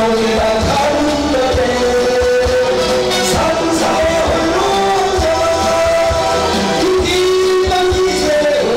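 A song: a Buddhist monk's sung melody with long held notes that slide between pitches, over band accompaniment with drums.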